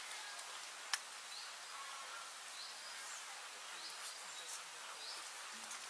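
Faint outdoor ambience: a small bird's short, high, rising call repeated about once a second over a soft hiss, with a single sharp click about a second in.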